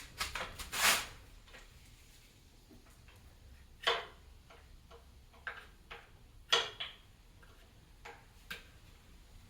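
Irregular clicks and light knocks of hand tools and parts being worked on an engine during teardown. A quick cluster comes in the first second, then single sharp clicks follow every second or so.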